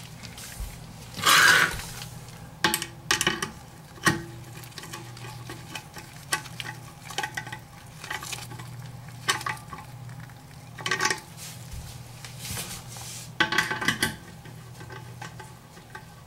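Socket wrench on an extension tightening the nuts on a toilet's closet bolts: irregular metal clicks, clinks and short scrapes of the socket on the nut and washer. A low steady hum runs underneath.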